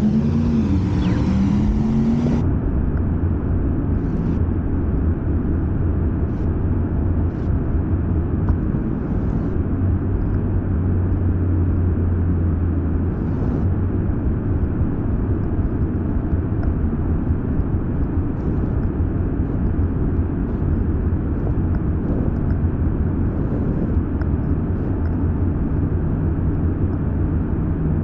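Steady low rumble of wind on the microphone and tyres on pavement while riding an electric scooter.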